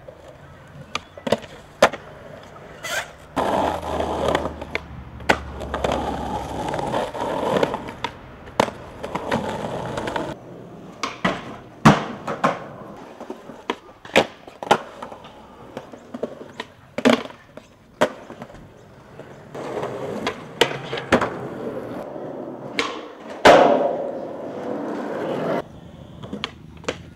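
Skateboard rolling on concrete, with repeated sharp pops and board slaps as tricks are popped and landed.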